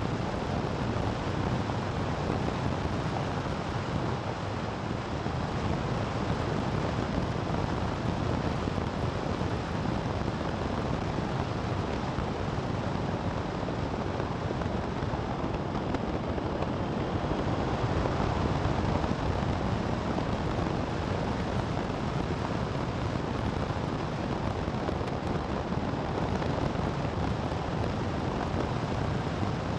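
Steady wind rush and road noise from a vehicle driving at about 70 to 80 km/h, with wind buffeting the microphone. No engine note stands out.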